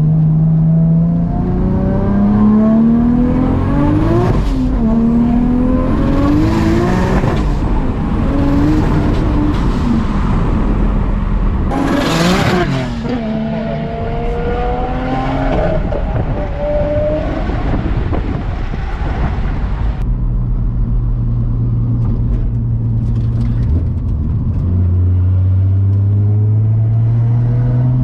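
Nissan RB30 straight-six in an S14 Silvia, heard from inside the car, revving up through the gears: the engine note climbs, drops at each gear change about 4 and 12 seconds in with a burst of hiss, holds low and steady for a few seconds, then climbs again near the end.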